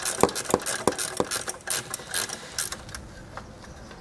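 Box wrench clicking as it turns a 13 mm nut off the horn mount: a run of rapid clicks with a few louder knocks, thinning out about three seconds in.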